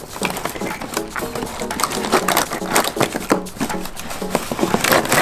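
Cardboard box rustling and scraping in a string of crackly scuffs as it is tilted and shaken to slide a large golden barrel cactus out, over background music.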